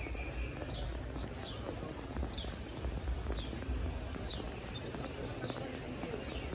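A small bird calling over and over: a short, high, falling note about once a second, above a steady low rumble of outdoor background noise.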